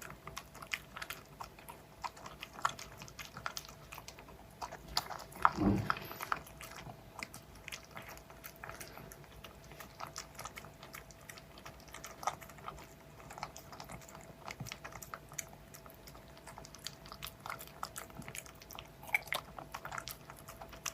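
A dog eating, its jaws crunching and chewing food in irregular small crunches, with one louder thump about five and a half seconds in.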